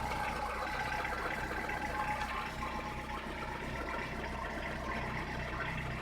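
VAZ (Lada) car engine idling steadily through an exhaust whose cracked resonator has just been welded up and refitted; the owner finds no exhaust leak anywhere.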